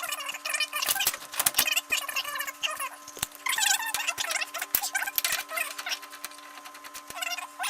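Fast-forwarded work audio from a Honda Civic steering wheel removal: a voice sped up into rapid high-pitched chatter, mixed with quick clicks and taps from the work on the steering wheel.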